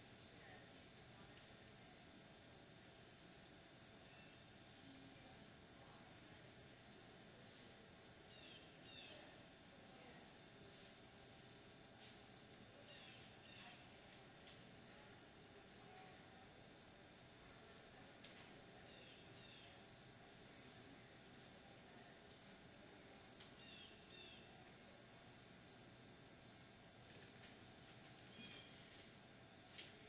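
Late-summer insect chorus: a steady high-pitched trill, with a second insect chirping in a regular beat about twice a second. A few brief falling chirps come in pairs now and then.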